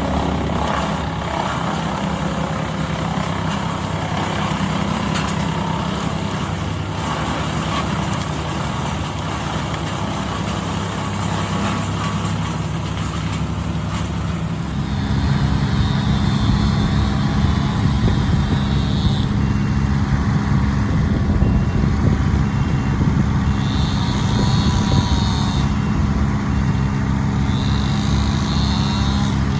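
Heavy machine engine running steadily, getting louder about halfway through. A high whine comes and goes three times in the second half.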